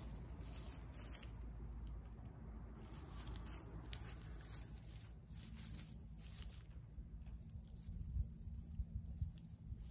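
A cat chewing and crunching on a fresh fish, with many small wet clicks and crackles and the rustle of dry grass stalks, and a few sharper bites near the end.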